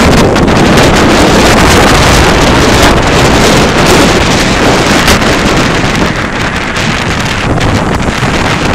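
Strong norte wind, gusting near 90 km/h, buffeting the camera microphone in a loud, steady rumble over the rush of rough sea. It eases slightly about six seconds in.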